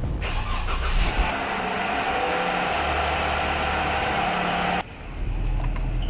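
Jeep Wrangler JK engine running, with a brief surge about a second in; the sound cuts off abruptly a little before the end, leaving a few clicks.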